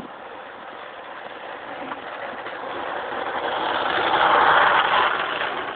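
Electric radio-controlled Mustang model plane's motor and propeller whirring as it passes, growing louder to a peak about four and a half seconds in, then fading.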